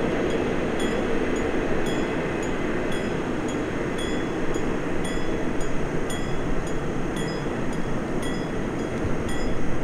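A train rolling past with steady rumbling wheel noise, and short high clinks from the wheels and running gear repeating about once a second.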